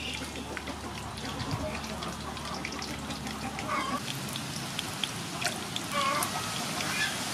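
Oil crackling and sizzling around a whole sole frying in a wok, with a low hum that stops about four seconds in. A few short animal calls sound in the background.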